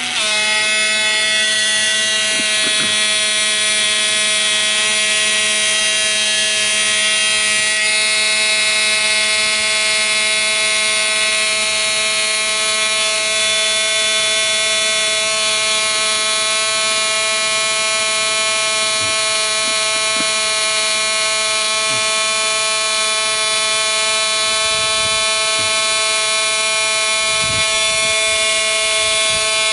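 Small electric fuel pump running steadily as it fills the gas tank of a Losi 5ive B RC car, a constant buzzing hum that holds one pitch throughout.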